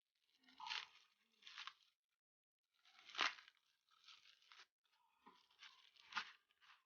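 A small product box and its packaging being opened and handled by hand: about five short rustles and scrapes, the loudest about three seconds in.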